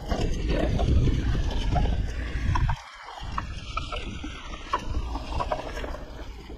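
Bicycle riding noise picked up by an action camera: wind rumble on the microphone and tyres rolling over a trail, with scattered clicks and rattles from the bike. The heavy rumble cuts off abruptly about three seconds in, leaving a quieter rolling noise with more clicks.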